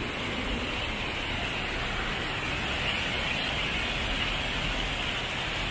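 Steady rushing of a small mountain stream cascading over rocks.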